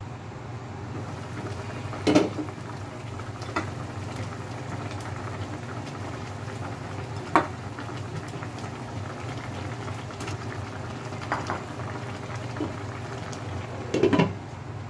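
Chicken tinola broth simmering in a pot with a steady bubbling hiss. A glass pot lid clinks about two seconds in and again, loudest, near the end as it is set back on. There are a few lighter knocks in between as vegetable pieces are added.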